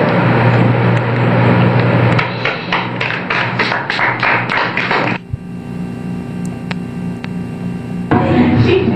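An audience applauding, settling into rhythmic clapping at about four claps a second. It cuts off suddenly about five seconds in to a quieter steady hum.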